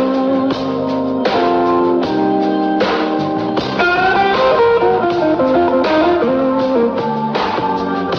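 Blues music in an instrumental stretch between verses: a guitar plays a melodic lead line.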